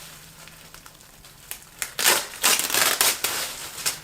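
Plastic bag crinkling and crackling as it is handled and pulled open, in a cluster of loud rustles about halfway in, with lighter rustles near the end.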